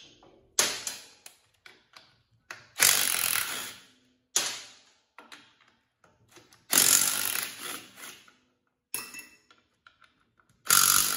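Cordless impact gun hammering 14 mm bolts loose through a swivel socket, in five short bursts of about a second each, with small clicks of handling between them.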